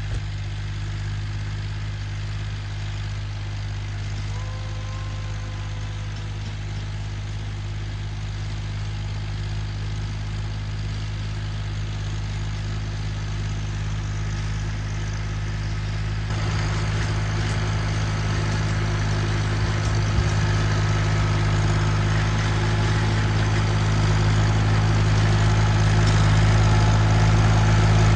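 Tractor engine running steadily while ploughing, gradually getting louder, with the sound growing fuller about two-thirds of the way in.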